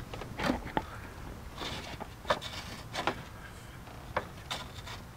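Fiberglass grille-delete panel being pushed and shifted by hand in the grille opening of a Fox Body Mustang's nose: a string of short scrapes and light knocks as it rubs against the edges during a trial fit.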